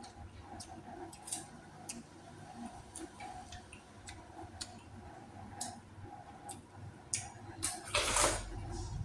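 A person eating close to the microphone: irregular small clicks and smacks of chewing, with a short, louder noisy sound about eight seconds in.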